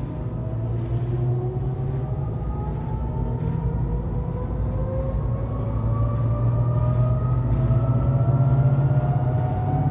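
Electric motors of a Stuttgart rack-railway car heard from the driver's cab: a whine whose pitch rises slowly and steadily as the car picks up speed, over a low running hum and rumble that grows a little louder toward the end.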